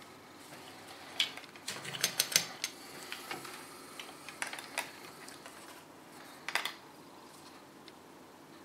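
Hands handling a fine wire and small tools on the bench while re-soldering a backlight tube's lead: a scattered run of light clicks and taps with some rustling, busiest early on and with a last sharp pair of clicks about six and a half seconds in.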